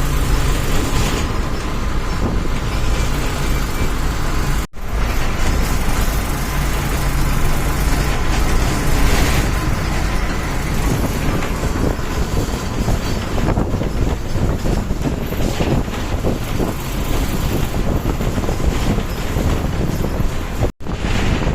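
Bus engine and road noise heard inside the moving bus, running steadily, with a low engine hum in the first several seconds. The sound cuts out for an instant twice, about five seconds in and near the end.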